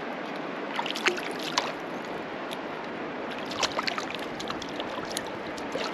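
Shallow, cobble-bottomed river flowing around a wading angler's legs: a steady rush of water with scattered small splashes and clicks.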